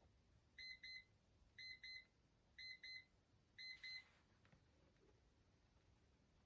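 Google timer alarm going off at the end of its countdown: four quick double beeps, about one pair a second, then it stops.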